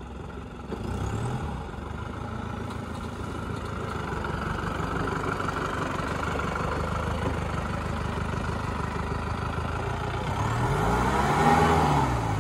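A vehicle engine running at low, steady revs, then revving up and settling back down about ten seconds in, the loudest part.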